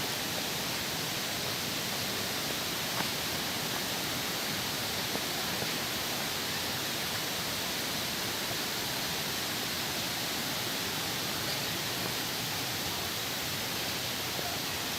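Steady rush of water at a rocky waterfall, an even unbroken hiss.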